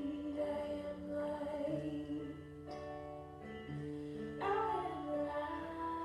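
Background music: a slow song with a woman singing over long held instrumental notes.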